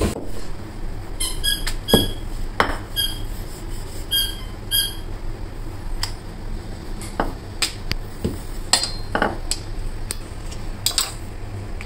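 Metal spoon knocking and clinking against a cooking pan while mixing boiled potatoes into the samosa masala. Several ringing metallic clinks come in the first five seconds, then scattered duller knocks.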